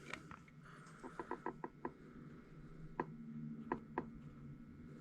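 Faint small clicks and taps of hand tools and tiny plastic parts on a workbench: a quick run of about six around a second in, then three more spaced out near the end, over a faint low hum.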